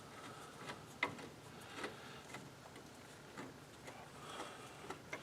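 Faint, scattered light clicks and taps of metal on metal, irregular and about once a second, as a wheel hub mounting bolt is worked into place by hand.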